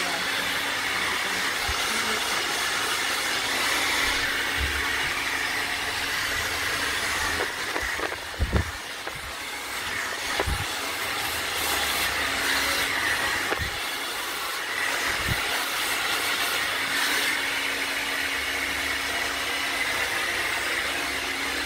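Hand-held hair dryer blowing steadily. It dips briefly near the middle, with a few low knocks.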